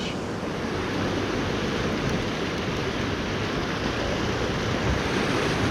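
Steady wash of ocean surf on the shore, mixed with wind noise on the microphone.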